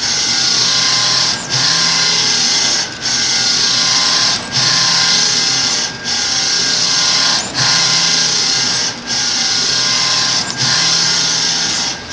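Mutoh printer running with a loud rasping mechanical noise that drops out briefly about every one and a half seconds, in a steady back-and-forth rhythm. A low hum comes and goes with the cycle. It is an abnormal noise, a sign that something in the machine is not running right.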